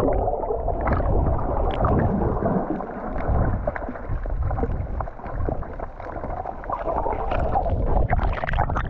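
Muffled water gurgling and sloshing around the camera, a steady low churning with scattered small clicks and pops.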